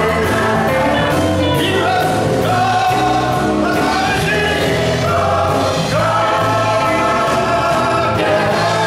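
A mixed gospel choir and a male lead singer singing live, over accompaniment with a steady beat and bass.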